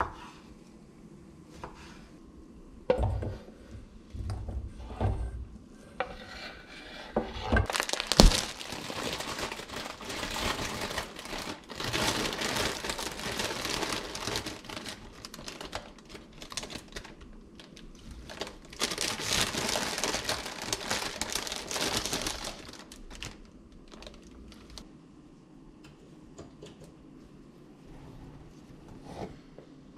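A thin plastic bag of lettuce crinkling and rustling as gloved hands work it open and pull leaves out, the loudest and longest sound in the middle stretch. It follows a few knocks and thumps from a wooden cutting board.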